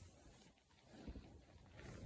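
A sleeping woman snoring faintly: a low rumble about halfway through, then a rushing breath near the end as the next snore begins.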